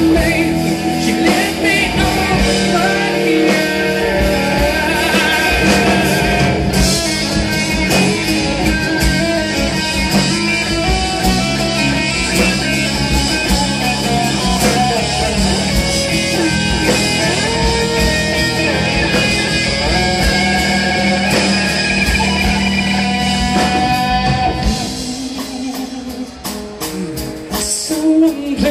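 Rock band playing live, with electric and acoustic guitars, bass and drums. About 25 seconds in the band drops back to a quieter, thinner passage, then comes back with a loud hit near the end.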